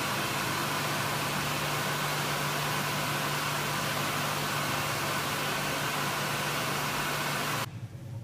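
Wall-mounted electric hand dryer running: a steady rush of blown air over a low motor hum, stopping abruptly near the end.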